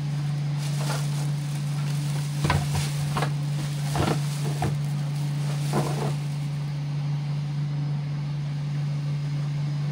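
A steady low hum with a handful of short knocks and clicks in its first half.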